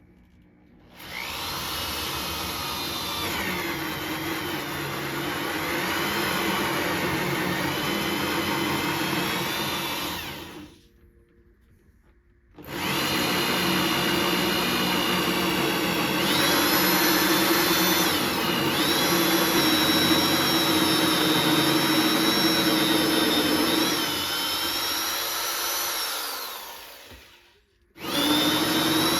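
Electric drill turning a hole saw into a solid oak door. It runs in three bursts: about ten seconds, a short pause, about fifteen seconds, then it starts again near the end. Its pitch wavers as the saw takes and sheds load.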